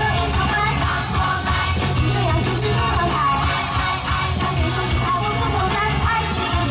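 Pop music with a woman singing over a steady bass beat, played loud through a stage PA system.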